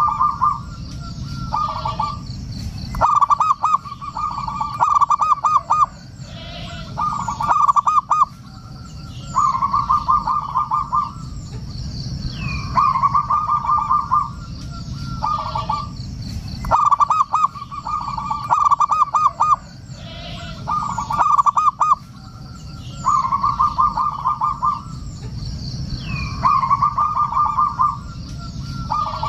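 Zebra dove (perkutut) cooing in its repeated song: phrases of quick, rippling coo notes, one every two to three seconds, used as a lure call for other doves.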